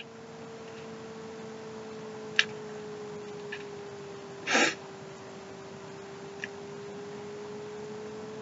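A steady low electrical hum that drifts slightly in pitch, with a small click a couple of seconds in. About halfway through, a woman takes one short, noisy breath while overcome with emotion.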